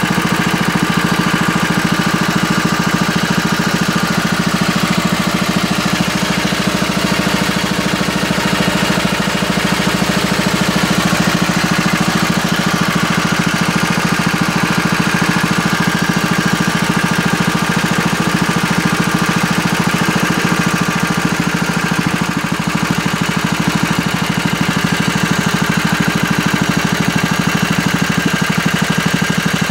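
Newly rebuilt W239 engine with a Solex carburettor running steadily at idle, an even, unchanging fast beat with no revving.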